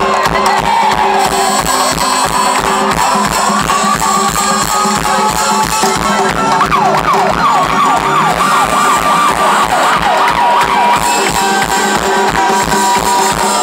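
Loud live band music over a PA, with a fast steady drum beat. Over it a siren sound effect wails, gliding slowly at first, then sweeping rapidly up and down about halfway through.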